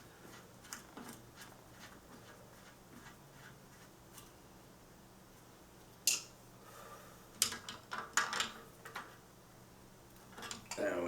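Light metallic clicks and taps of a bike pedal being threaded into the crank arm and tightened with channel-lock pliers, faint at first, with sharper clicks from about six seconds in.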